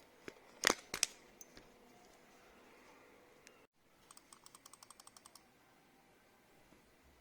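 Keystrokes on an AJAZZ AC081 mechanical keyboard fitted with Royal Blue tactile and Jwick Yellow Pro switches: a few loud clacks in the first second or so, then a quick, even run of about a dozen lighter clicks around four to five seconds in.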